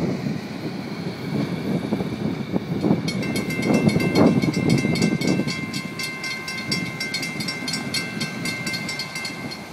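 Freight train rolling past on the rails with a low rumble, and from about three seconds in a railroad crossing bell ringing in rapid, steady strikes, about four a second, while the crossing gates rise.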